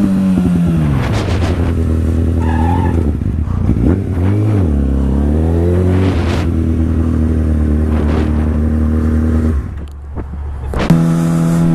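Motorcycle engine running at low parking-lot speed: the pitch falls as it slows, rises and falls with a brief rev about four seconds in, then holds steady before dropping away near the end.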